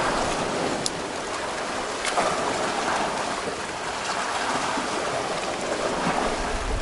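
Sea water washing and fizzing over shore rocks: a steady hiss, with a couple of faint clicks.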